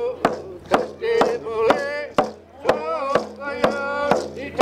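Hand drum struck with a padded beater in a steady beat, about two strokes a second, with a voice singing along in held, wavering notes.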